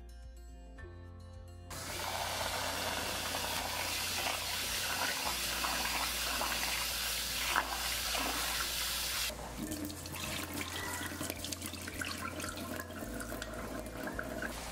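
Tap water running steadily into a bowl of dry long-grain rice, then, about nine seconds in, the rush stops and turns into uneven splashing as hands rub and swish the rice in the water to wash it. Soft background music runs underneath.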